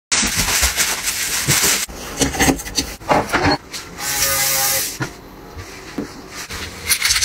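A handheld electric sanitizer spray gun hissing for about a second near the middle, with a faint motor tone under the spray. Around it are rustling, handling noises and light knocks.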